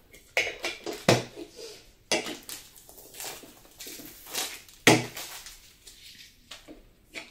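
Funko Soda tin cans being handled and opened by hand: a few sharp metallic clicks and knocks, the loudest about five seconds in, with light rustling in between.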